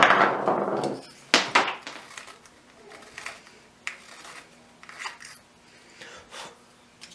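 A sharp knock with about a second of scraping after it, two more knocks, then scattered light clicks and clinks of small hard objects being handled.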